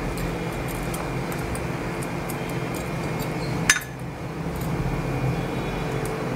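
Plastic spatula stirring thick fruit custard in a metal saucepan: soft scrapes and small clinks against the pan, with one sharp knock just under four seconds in.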